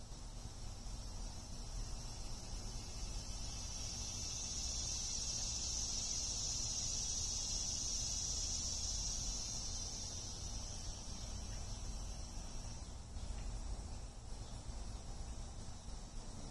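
Insects droning in the background: a steady high-pitched buzz that swells after a few seconds and drops away about thirteen seconds in, over a low rumble.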